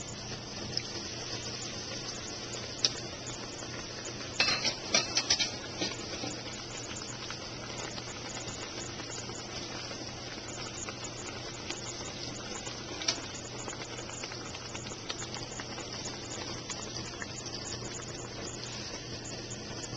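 Battered Oreos sizzling in a deep fryer's hot oil, a steady hiss over a low hum. A quick run of sharp clicks and pops comes about four to five and a half seconds in, with a single click before and another later.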